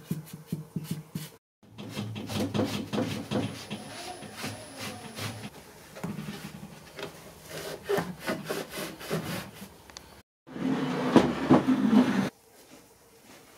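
Brush scrubbing stain onto a carved wooden chair frame in quick repeated strokes, interrupted twice by a moment of dead silence. Near the end comes a louder stretch of rubbing on wood.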